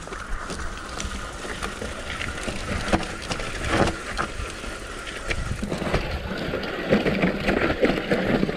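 Mountain bike descending a rough dirt trail: tyres running over the ground and the bike rattling with many small knocks, growing louder as it goes.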